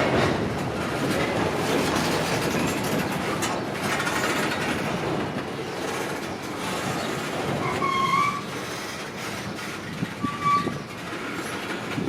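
Empty coal train's hopper cars rolling on the rails with a steady rumbling clatter, and two short metal-on-metal squeals, one about two-thirds of the way through and another near the end.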